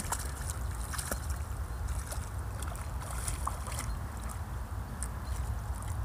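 Wind rumbling on a phone microphone, with faint splashing and ticks of a dog wading through shallow creek water.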